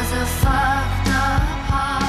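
Music: a song with a sung melody of long, wavering notes over a steady bass line and drum hits.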